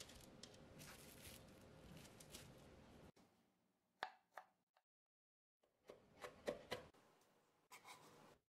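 Chef's knife chopping garlic cloves on a wooden cutting board: sharp taps of the blade on the board in short clusters, starting about four seconds in after a few seconds of faint steady noise.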